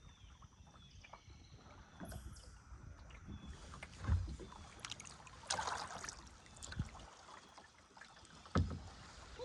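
Kayak paddling: the paddle dipping and splashing in the river water, with a few dull thumps, the loudest about four seconds in and again near the end.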